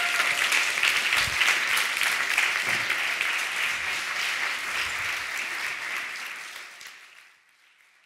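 Audience applauding, a dense steady clatter of many hands that dies away over the last couple of seconds.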